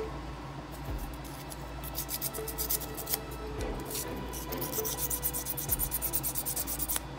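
A small file rasping against the edge of a carbon-fibre drone frame arm in quick back-and-forth strokes, starting about two seconds in. The arm is being filed down so it will fit into its slot in the frame.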